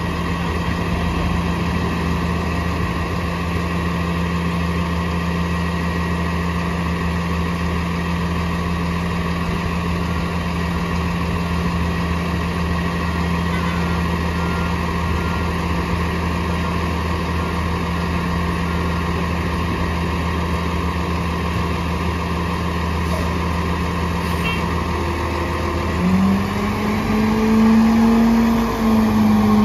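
Diesel engine of a Peterbilt 337 rear-loader garbage truck idling steadily close by. Just before the end it revs and pulls forward, its pitch rising and then falling as it gets louder.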